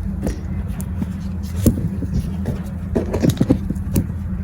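Scattered clicks and light knocks of small plastic and metal trimmer parts being handled and fitted, several in quick succession about three seconds in, over a steady low hum.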